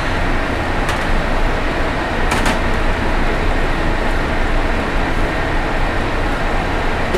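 Steady noise of commercial-kitchen ventilation fans, with a couple of short metal clinks of tongs against steam-table pans about one and two and a half seconds in.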